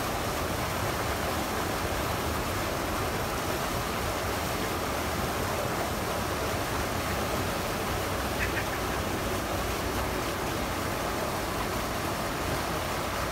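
Water pouring over a low canal weir, a steady, even rush of white water. A brief high sound is heard about two-thirds of the way through.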